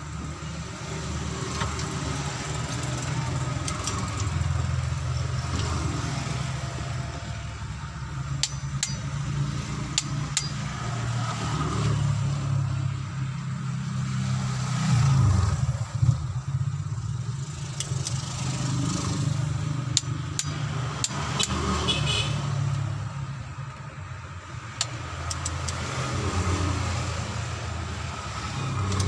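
A motor vehicle engine running with a steady low rumble, rising briefly about halfway through. Over it come occasional sharp clicks from a click-type torque wrench as cylinder head bolts are tightened to torque.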